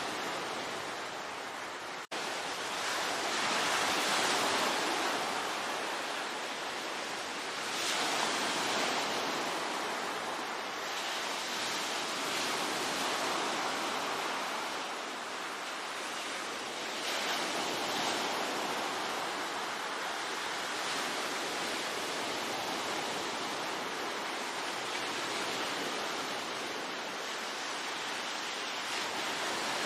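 Sea waves breaking and washing ashore: a steady surf rush that swells every few seconds as each wave comes in. There is a very brief dropout about two seconds in.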